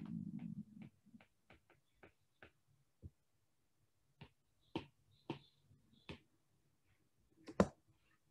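Stylus tapping and ticking on an iPad screen during handwriting: a quick run of light clicks in the first couple of seconds, then scattered taps, with the loudest click near the end. A brief low hum sits under the first second.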